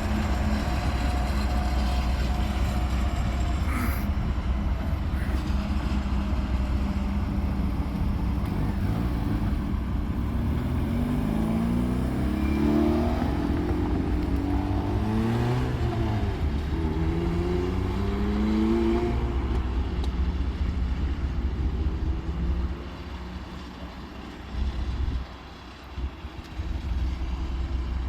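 Steady low motor rumble, with an engine speeding up in several rising sweeps of pitch midway. The rumble falls away about 23 seconds in.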